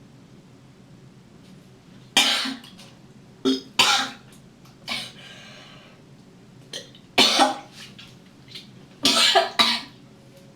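A drunk woman coughing and retching as she tries to vomit, in about six loud bursts spaced a second or more apart from about two seconds in.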